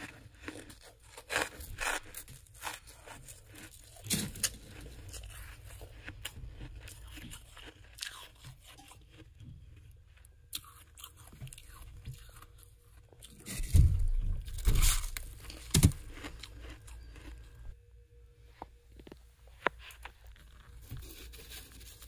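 Soft, snow-like freezer frost grown with a humidifier crunching and scraping as it is dug out by hand, in scattered crunches with a louder run about two-thirds of the way through.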